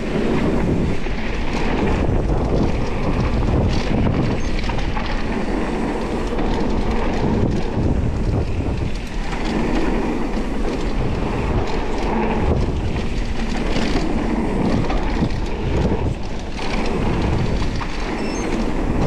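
Mountain bike (Specialized Status 160) riding fast down a dirt trail: continuous rush of wind on the microphone mixed with tyre roar on dirt and the rattle of the bike over bumps, swelling and dipping with the terrain.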